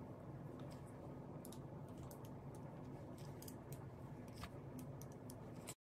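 A flat iron being worked over hair: scattered light clicks and rustles over a low steady hum, cutting off abruptly near the end.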